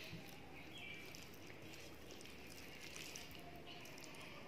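Faint eating sounds: fingers mashing khichuri against a steel plate, with soft chewing and scattered small clicks. Short, faint high chirps come and go in the background.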